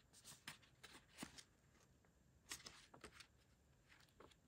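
Sheets of pre-cut craft paper being leafed through: a string of short, faint rustles, with a lull in the middle.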